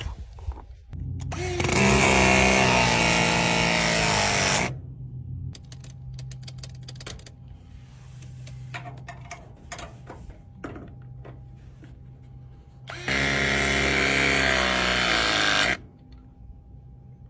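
Power press tool running two press cycles, each a motor whine of about three to four seconds as the jaws crimp a press fitting onto copper pipe, with clicks and handling noise between the two runs.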